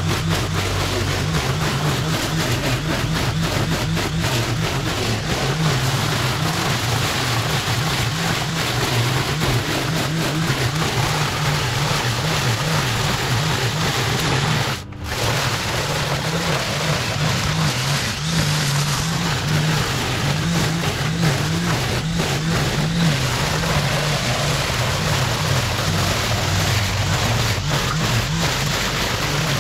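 Makita 18V×2 brushless battery powerhead with a straight-shaft line trimmer attachment running at speed, its spinning line whipping through tall, dense grass. The steady noise breaks off for a moment about halfway.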